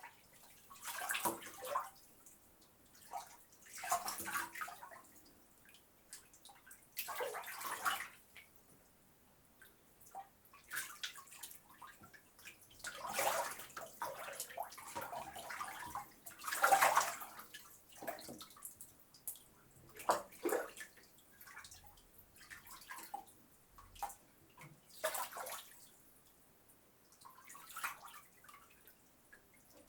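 Bath water sloshing and splashing as a person moves about in a bathtub: short, irregular splashes every couple of seconds with quiet gaps between, the loudest a little past halfway.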